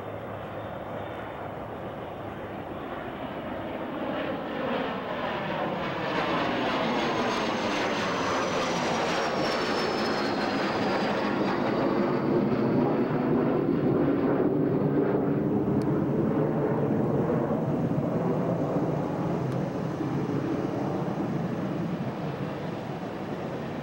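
Four-engined Douglas DC-8-63 jet on final approach, its Pratt & Whitney JT3D turbofans giving a steady rushing roar that swells as the plane nears. A thin high whine slides down in pitch about halfway through, and the roar holds loud before easing a little near the end.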